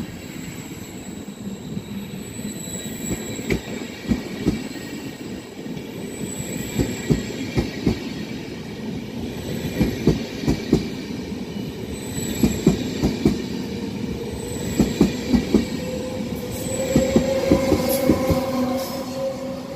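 Trenitalia regional double-deck train rolling slowly past, its wheels knocking over rail joints in repeated clusters of two to four clacks as each bogie passes. Near the end an electric whine comes in as the E.464 electric locomotive at the tail goes by.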